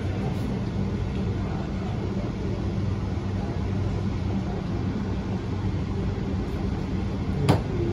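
Electric BTS Skytrain train running, heard from inside the carriage: a steady rumble with a low hum, and a single sharp click near the end.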